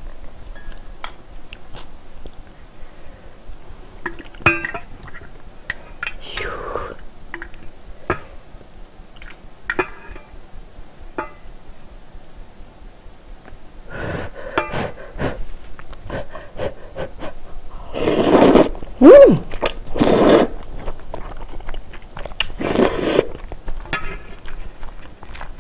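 Close-miked eating of a bowl of noodle soup: chewing, with chopsticks and a wooden ladle clicking and scraping against a stainless steel bowl. In the second half come several loud slurps of noodles and broth.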